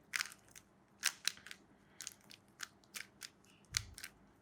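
3x3 Rubik's Cube being turned quickly in a speedsolve: an uneven run of short, sharp plastic clicks as the layers snap round.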